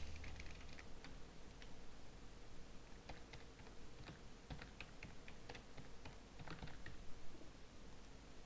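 Computer keyboard typing: faint key clicks in short irregular runs with pauses between them.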